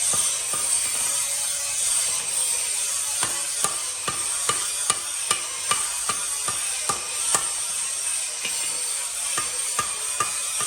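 Hand hammer striking metal on an anvil in steady blows, roughly two a second, each with a short ring, over a steady hiss.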